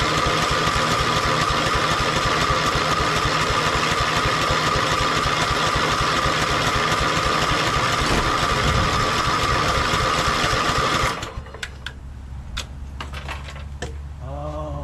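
Electric starter cranking a riding mower's Kohler OHV engine nonstop for about eleven seconds with a steady whine, the engine not yet firing while fuel fills the newly fitted replacement carburetor's bowl. The cranking stops suddenly, leaving a quieter low steady hum.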